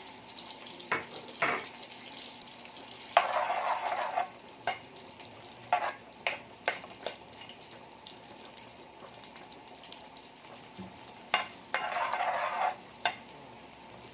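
Butter sizzling steadily as it melts and foams in a frying pan, with scattered sharp clinks of a utensil on the pan and two louder scrapes about a second long, about three and twelve seconds in.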